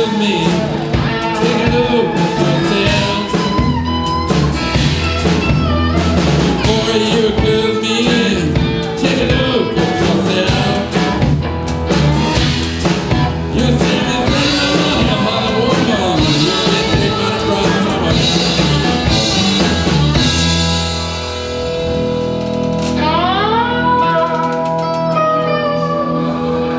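Live blues band of box-bodied, cigar-box-style guitars and a drum kit playing a driving groove. About twenty seconds in the drums stop, a guitar glides up in pitch and the band holds a final ringing chord to close the song.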